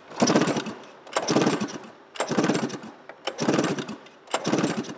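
Arctic Cat 700 EFI laydown power-valve two-stroke twin being cranked over for a compression test on the clutch-side cylinder, in five short bursts about a second apart. The gauge reads 127, even with the mag side.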